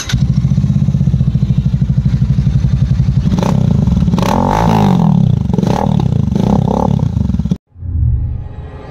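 Royal Enfield Super Meteor 650's parallel-twin engine running loud through its exhaust: a fast, even beat at idle, then revved up and down repeatedly from about three seconds in. The engine cuts off suddenly near the end, and a rising swell of sound begins after it.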